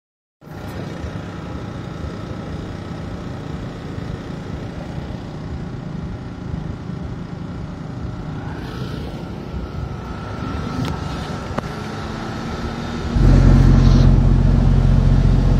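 A steady low rumble, then about 13 seconds in a car audio system's subwoofers cut in suddenly with a very loud, steady deep bass tone: an SPL bass-race run being metered.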